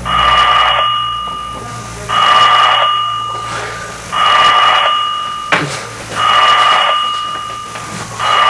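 An electronic ringer sounding five times, one ring about every two seconds, each a buzzy two-tone ring that fades as it goes. A short click falls just after the middle.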